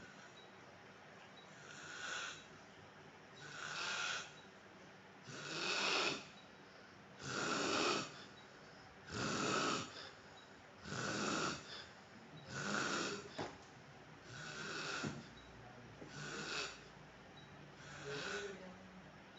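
A man snoring in his sleep: a loud snore about every two seconds, around ten in all, growing louder toward the middle and easing off again.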